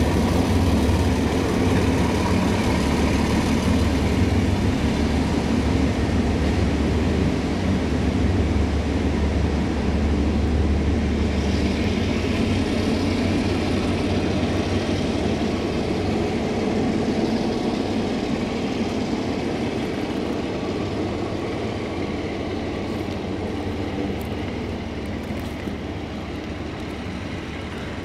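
Diesel freight locomotive engine running with a low, steady drone, gradually fading away.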